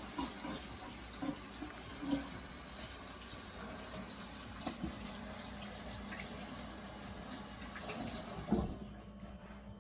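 Kitchen sink tap running in a steady stream while hands are washed under it. A knock comes near the end, and the water then stops as the tap is turned off.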